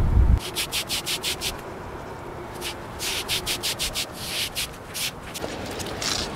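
Stiff yard broom sweeping a wet concrete yard: quick scraping strokes of the bristles, several a second, coming in runs with short pauses. A low wind rumble cuts off just under half a second in.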